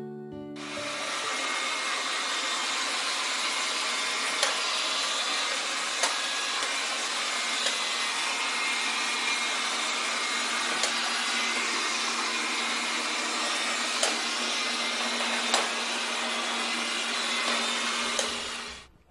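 Robot vacuum cleaner running: a steady whirring hum from its motor and brushes, with a light click about every second and a half. It fades out near the end.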